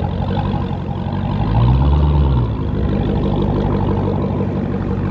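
Supercharged V8 of a Dodge Hellcat running hard while the car is swung around in a slide. The engine holds a steady heavy drone, with one rev that rises and falls back about two seconds in.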